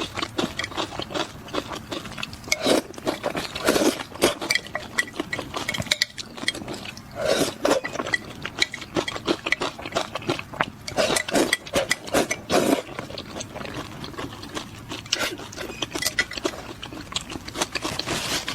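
Close-miked crunching and chewing of crispy food: a dense, irregular run of crisp cracks with heavier bites every few seconds.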